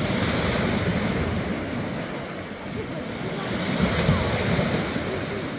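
Small waves breaking and washing up on a beach, the surf swelling twice: at the start and again about four seconds in.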